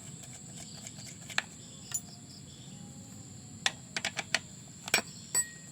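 Crickets chirping steadily in the background, with scattered sharp clicks and clinks of small metal parts being handled: single clicks early on, then a quick run of four or five just under four seconds in, and two more around five seconds.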